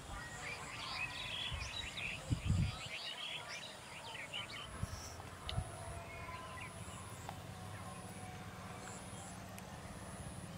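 Small birds chirping repeatedly through the first few seconds, with a couple of low thumps about two and a half seconds in, over steady outdoor background noise.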